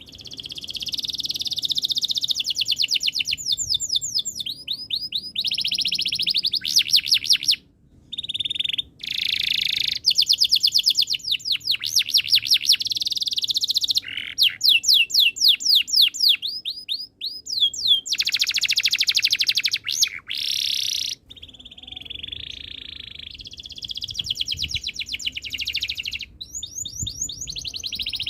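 Canary singing a long, fast song of rapid trills and rolls of repeated notes, with a few short breaks.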